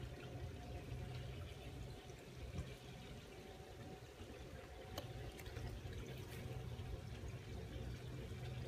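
Motorized exterior roll-up screen rising, its tube motor giving a faint, steady low hum.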